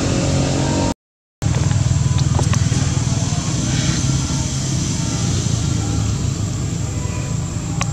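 Steady low rumble of a running engine, cut by a brief moment of complete silence about a second in.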